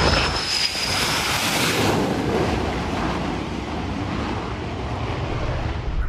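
Jet engine roar of an F/A-18 on approach to the carrier deck, a dense rushing noise with a steady high whine in the first second, with wind buffeting the microphone.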